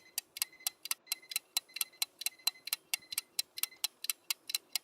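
Mechanical watch ticking rapidly and evenly, about five sharp ticks a second: the movement is running.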